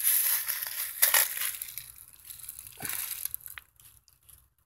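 Loud, close rustling and crunching as hands move a cloth-wrapped kitten's body among dry twigs. The noise is strongest about a second in, flares again near three seconds, then dies away.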